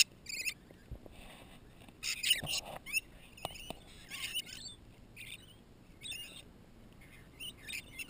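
A flock of rainbow lorikeets chattering as they feed, in scattered bursts of short, high calls, with a few sharp clicks among them.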